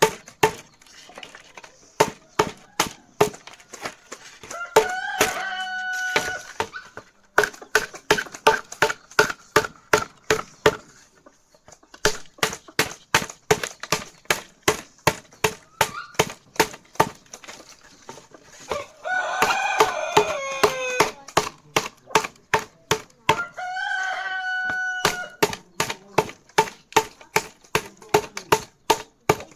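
Sharp, regular chopping strikes, about two to three a second, from a blade cutting bamboo. A rooster crows three times over them, the middle crow the longest.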